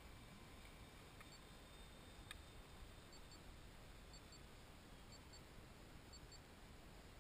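Near silence: faint steady hiss with two faint clicks early on and faint, short, high paired beeps repeating about once a second.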